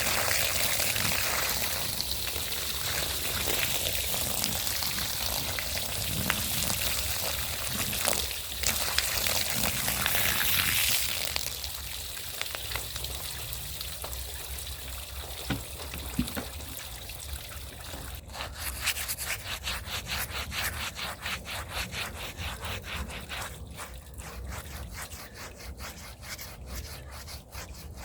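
A scrub brush being worked back and forth over a rug, with fast, even strokes from about two-thirds of the way in. Before that, a loud steady hiss runs for the first third and then stops.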